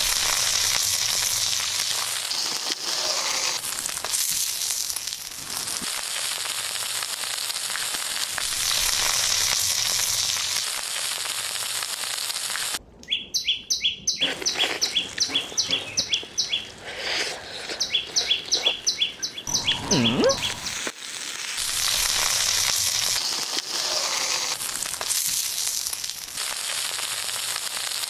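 Salmon fins and frogs sizzling in oil on a hot grilling stone over charcoal. Through the middle the sizzle gives way to a run of quick, sharp, high ticks, about four a second.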